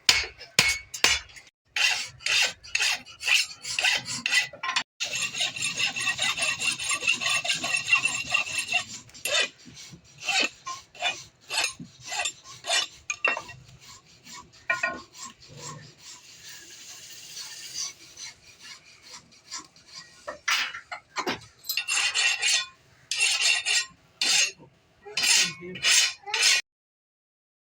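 Metal being worked by hand at a blacksmith's bench: a long run of short file or rasp strokes and knocks, with a steadier stretch of scraping about a fifth of the way in. The sound cuts off suddenly near the end.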